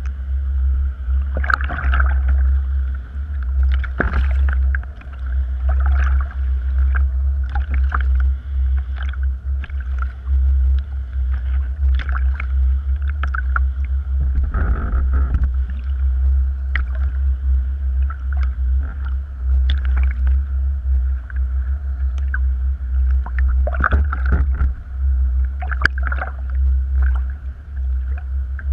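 Water splashing and slapping against a kayak's hull and paddle every second or two on choppy water, over a steady low rumble.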